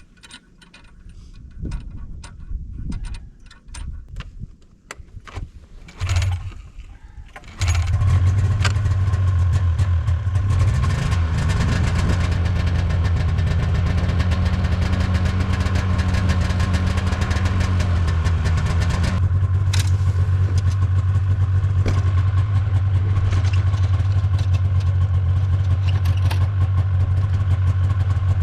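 Snowmobile engine starting: a few knocks and clicks and a brief first try about six seconds in, then the engine catches about a second later and runs steadily, its speed rising a little for several seconds before settling back to an idle.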